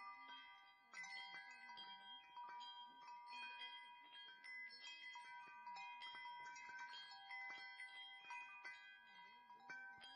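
Wind chimes tinkling softly: many bell-like notes at different pitches, struck at uneven moments and left ringing so that they overlap.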